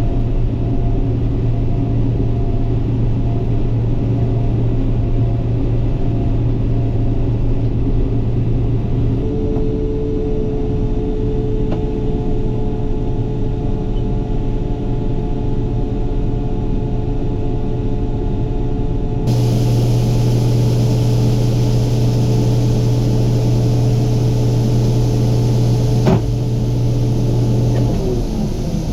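Case IH combine running steadily at harvest, heard from inside the cab as a loud, even engine and machinery drone. Its tone changes abruptly twice, and there is a single sharp click near the end.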